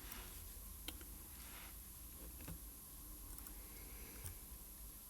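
A few faint, light clicks of a watchmaker's small metal tools on the parts of a mainspring barrel, spaced out over quiet room tone.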